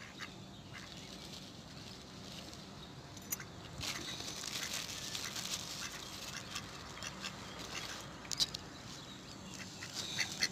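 Mallard ducks on a pond, quiet water movement and occasional clicks, then a run of short, quick duck calls starting near the end.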